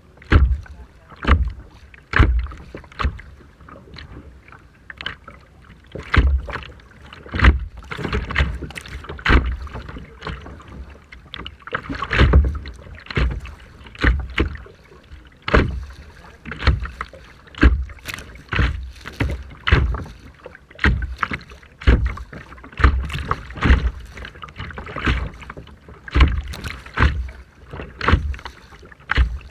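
Kayak paddle strokes splashing in rough water, about one stroke a second.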